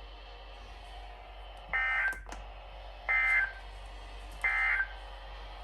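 Emergency Alert System end-of-message signal: three short, identical bursts of buzzy digital SAME data tones, about a second and a half apart. This marks the end of the warning message.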